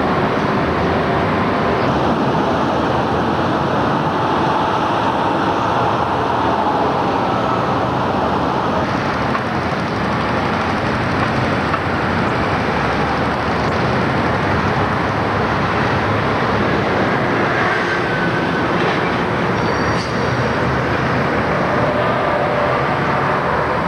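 Steady, loud noise of heavy road traffic on a busy multi-lane city road, with a few faint high squeals here and there.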